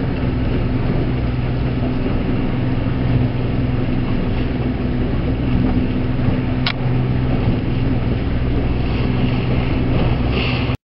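Steady drone of a small boat's engine running underway, with a constant hiss over it, cutting off abruptly near the end.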